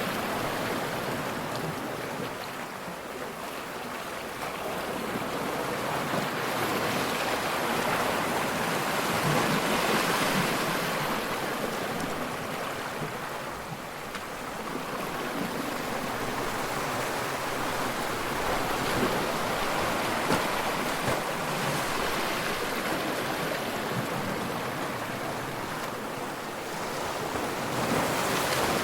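Ocean waves breaking and washing onto the shore, a continuous rushing surf that swells and ebbs, building to louder crests about every eight to ten seconds.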